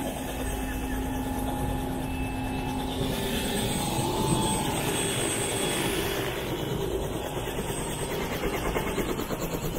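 Helicopter engine and rotor running steadily, a dense continuous noise that begins to pulse rhythmically near the end.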